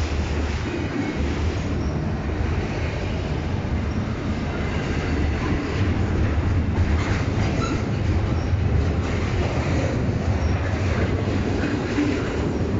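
Double-stack intermodal freight cars rolling past close by: a steady heavy rumble of steel wheels on the rails, with clicking over rail joints and a few brief faint wheel squeals.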